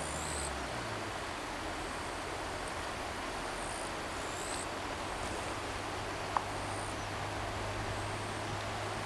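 Shallow river rapids rushing steadily, with short high chirps now and then and a single sharp click about six seconds in.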